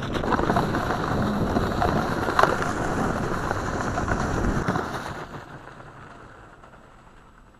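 Homemade electric snow scooter riding over snow: a loud, noisy rush of its paddled drive track churning snow, mixed with wind on the microphone. About five seconds in, the noise begins to fade away.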